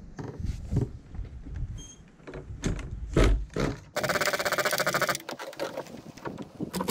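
Hands working on a nitro RC snowmobile's engine: scattered clicks and knocks, then from about four seconds in a fast, dense clatter where the footage is sped up.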